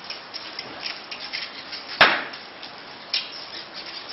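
Jersey cow's hooves clicking and shuffling on wet concrete, with one sharp knock about two seconds in and a lighter one about a second later.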